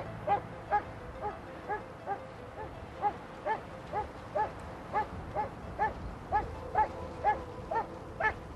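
A farm dog barking in a steady run of short barks, about two to three a second.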